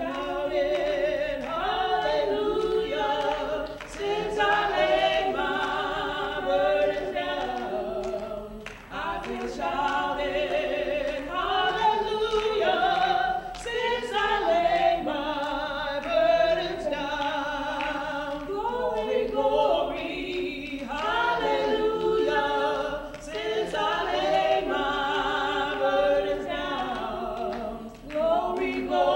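A group of voices singing a hymn a cappella, without instruments, in phrases with short breaths between, with hand clapping along.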